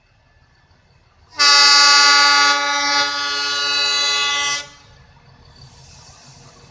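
YDM4 metre-gauge diesel locomotive's horn sounding one long, steady blast of about three seconds as the train approaches, followed by the faint sound of the approaching train.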